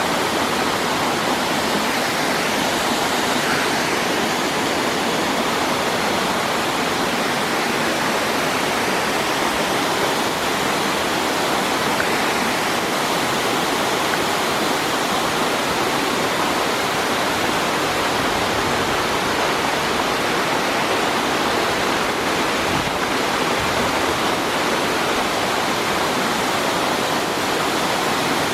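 Rushing water, a loud steady hiss with no breaks or changes.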